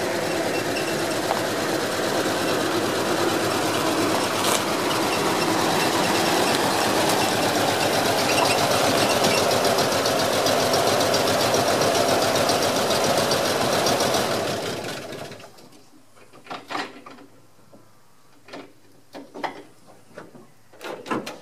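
1965 Bedford J5L tip truck's six-cylinder petrol engine running as the truck pulls up, which the owner says appears to be missing on one cylinder. About fourteen seconds in the engine is switched off and dies away, followed by a few scattered knocks and clicks.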